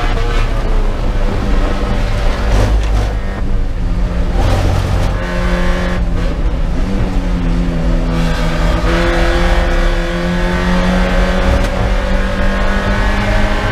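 In-car sound of a Spec Miata race car's four-cylinder engine: running hard at speed, then lifting and breaking up briefly as it brakes and downshifts for a corner, and rising again as it accelerates out.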